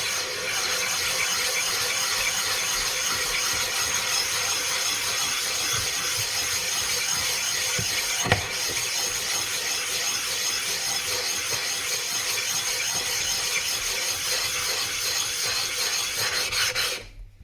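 A coarse 200-grit flattening stone scraped back and forth over a water-soaked 320-grit whetstone, a continuous gritty rubbing as the stone's surface is ground flat. There is a single knock about eight seconds in, and the scraping stops just before the end.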